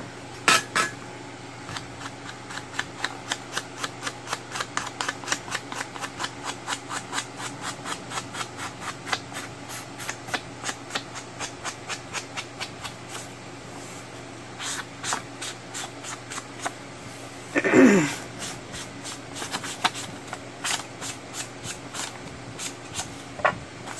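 An ink dauber dabbed over and over against the edges of a book-page paper file folder: a quick run of taps, about three a second, that later slows to scattered taps.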